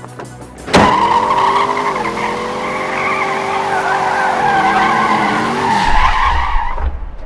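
Car tyres screeching in a long skid that starts suddenly about a second in and wavers in pitch, followed near the end by a low engine rumble.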